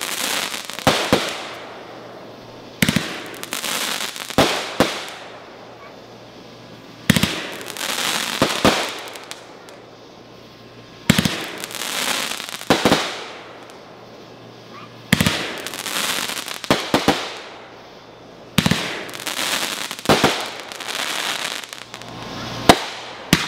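Aerial fireworks bursting one after another, about every four seconds. Each is a sharp bang or a quick cluster of bangs, followed by a second or two of crackling that fades.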